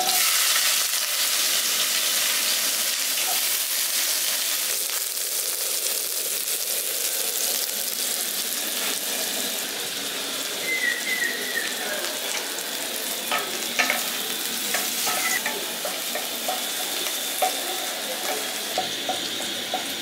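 Chopped capsicum sizzling in hot refined white oil in a kadai. The sizzle jumps up at the start and slowly eases off, and in the second half a spatula stirring it knocks and scrapes against the pan.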